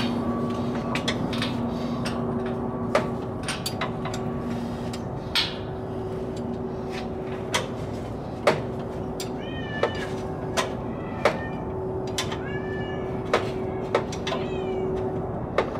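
Spanner clicking and clinking against metal at irregular intervals as a starter-motor mounting bolt is worked out, over a steady hum. A few short squeals come in the second half.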